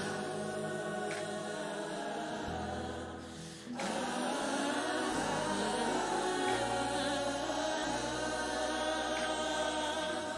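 Choir singing a slow gospel worship song, with sustained low bass notes that shift every couple of seconds underneath.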